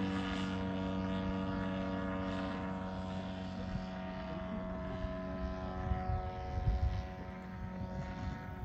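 Radio-control aerobatic model airplane's engine and propeller running at a steady pitch, slowly fading. Wind on the microphone becomes more noticeable near the end.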